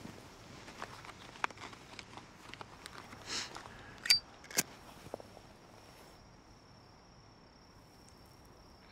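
A metal flip-top lighter is opened with a sharp click and a brief metallic ring, then about half a second later its wheel is struck with a second click to light a cigarette. Faint small clicks and rustles come before.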